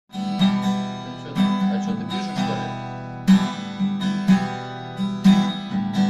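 Acoustic guitar played alone as the introduction to a song, a chord strummed about once a second and left to ring between strokes.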